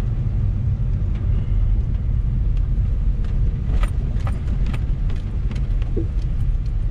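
Car driving on a wet road, heard from inside the cabin: a steady low rumble of engine and tyres, with scattered light clicks.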